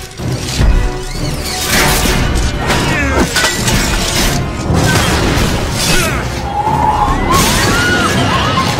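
Movie soundtrack: dramatic film music mixed with heavy crashes and shattering as mechanical tentacles smash into a steel bank vault door. The loudest crash comes about a second in.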